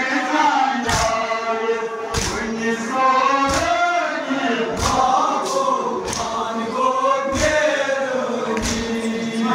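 A crowd of men chants a Kashmiri noha, a Shia mourning lament, together in unison. Sharp hand strikes of chest-beating (matam) land roughly once a second in time with the chant.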